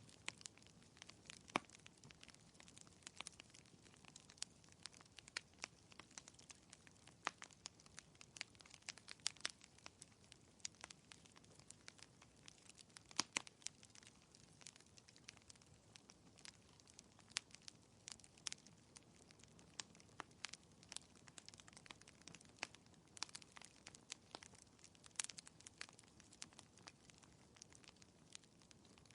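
Fire crackling in a fireplace: faint, irregular small pops and snaps over a soft steady hiss.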